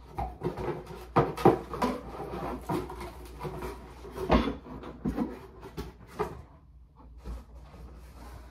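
A cardboard shipping box and its packaging being handled: rustling, scraping and a run of knocks, with the loudest knock about four seconds in. It goes quieter after about six seconds, leaving a few light taps.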